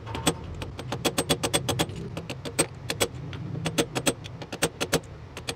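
Rapid light taps on a metal driver, about five a second with a brief pause about two seconds in, each a sharp click with a short metallic ring: the steering-head bearing inner race being tapped down evenly onto the steering stem.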